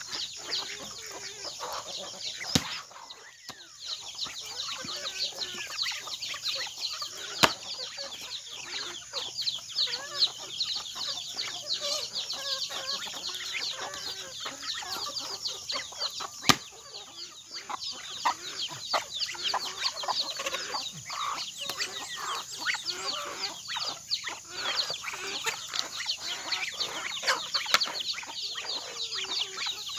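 A flock of chickens clucking and chirping steadily as they feed. Three sharp chops of a machete into fruit on a wooden chopping stump sound out over the first half.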